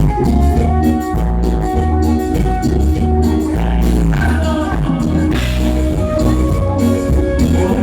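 Live band music: a Latin dance tune with a heavy bass line under a melody and a steady beat.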